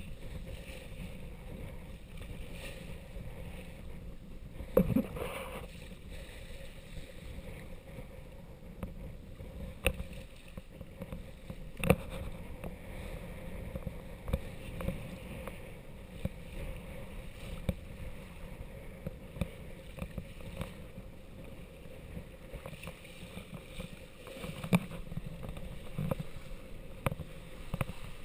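Sailing yacht's hull moving through choppy water: a steady rush of water along the hull, broken by several sharp thumps, the loudest about five and twelve seconds in.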